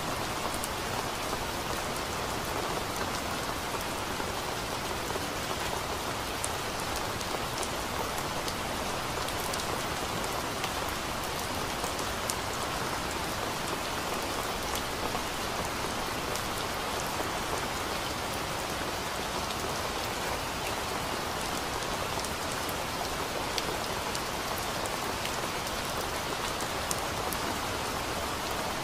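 Steady rain: an even, unbroken hiss with faint scattered drop ticks.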